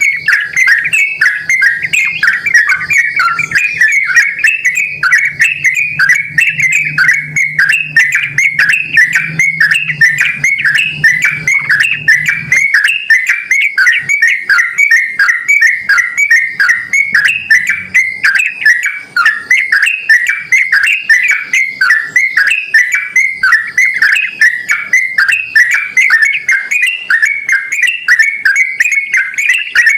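Yellow-vented bulbul (trucukan) singing vigorously in a continuous run of short, fast-repeated whistled notes, several a second. A faint low hum sits under the song for the first twelve seconds or so, then stops.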